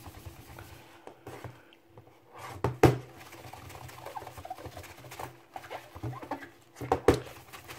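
Folded paper towel with rubbing alcohol wiped over the plastic back and glass screen of a Lenovo Vibe C smartphone: soft, uneven rubbing and handling noise, with sharp knocks of the phone on the desk about three seconds in and again near the end.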